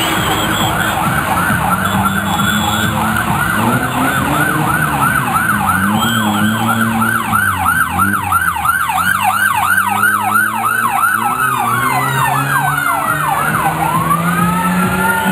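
Vehicle siren on a fast yelp, its pitch sweeping up and down several times a second over the engines of passing rally vehicles. Near the end it switches to a slow wail, one long falling tone and then a rising one.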